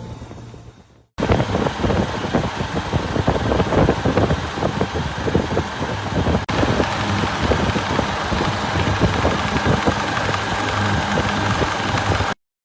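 Refrigeration compressor of a cold room's condensing unit running loud, with a fast, irregular rattling knock. The sound starts suddenly about a second in and cuts off abruptly near the end.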